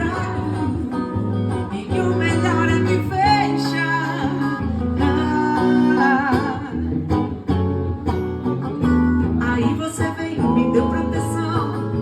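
Pagode song: a voice singing over strummed guitar, with a steady bass underneath.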